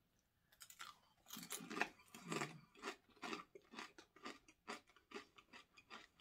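Someone crunching and chewing kettle-cooked potato chips: a steady run of short crisp crunches, about three a second, starting about half a second in.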